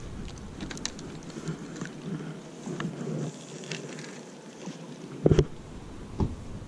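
Handling noise from a spinning rod and reel: scattered light clicks, with a thump a little past five seconds in and a smaller one about a second later, over a steady low background.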